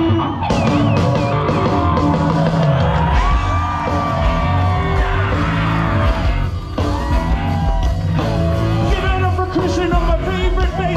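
Live rock band playing loud through a festival PA, with electric guitar, drums and bass, and sung or yelled vocals, heard from within the crowd.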